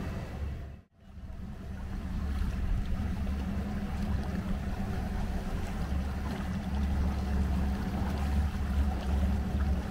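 Triple Mercury 600 hp V12 Verado outboards idling at low speed, a quiet steady low hum over water churning from the props. The sound drops out briefly about a second in, then comes back.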